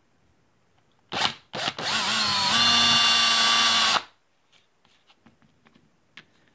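Power drill with a 3/16-inch bit boring a bolt hole through high-temperature gasket material into a wooden backing block. It is blipped twice, then spins up with a briefly rising whine and runs steadily for about two seconds before stopping sharply. Faint clicks and rustles follow.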